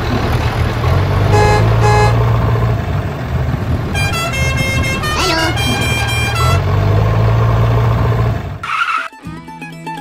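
A tractor engine runs steadily, with two short horn beeps about one and a half and two seconds in. A longer run of high tones follows from about four to six and a half seconds. The engine cuts off near the end, and plucked-string music starts.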